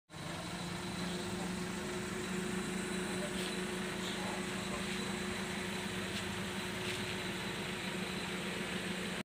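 An engine running steadily at an even speed, a constant unchanging hum.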